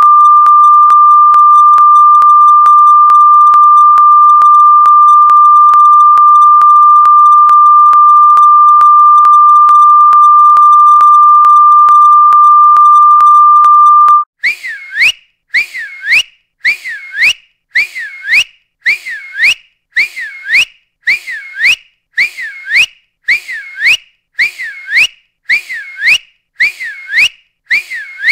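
A loud, steady single high tone held for about fourteen seconds, then cut off abruptly. It is followed by a run of short whistle-like chirps that swoop in pitch, about one a second, one of the sounds played to annoy or attract cats.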